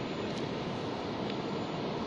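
Steady rushing noise of wind and water at the river's edge, with a couple of faint ticks.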